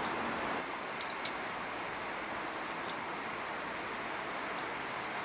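Steady outdoor rushing noise, with a quick cluster of sharp clicks and taps about a second in and two short, high, falling chirps from a small bird.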